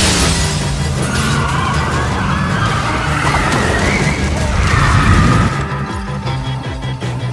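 Film soundtrack of a disaster scene: a loud crash at the start, then dense rumbling and crashing of destruction over a music score, with wavering high sliding tones through the middle.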